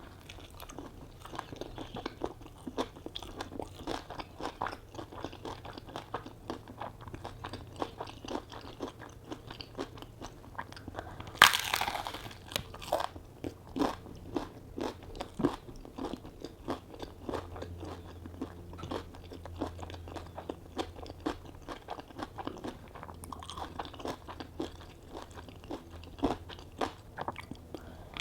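Close-miked chewing of crunchy food: a steady run of small crisp crunches, with a loud crunching bite about eleven seconds in.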